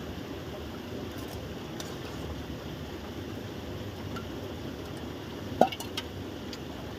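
A metal spoon clinks lightly against a metal bowl and pot as curry is ladled out, with a few scattered clinks. About five and a half seconds in comes a louder clack with a short falling squeak, then a couple of small clicks, over a steady background hiss.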